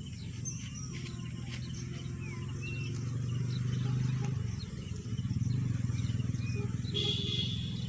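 A motor running steadily with a low, pulsing drone, with short bird chirps over it and a brief high buzz near the end.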